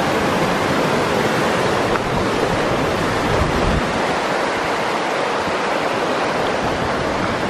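Mountain creek rushing over boulders: a steady, loud whitewater rush.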